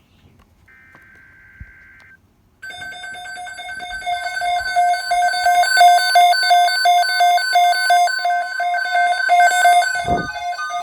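NOAA Weather Radio emergency alert: a short buzzy burst of SAME header data tones about a second in. From about two and a half seconds in comes a loud, rapidly pulsing electronic alarm tone with a steady tone near 1 kHz beneath it. Together they announce an incoming severe thunderstorm watch.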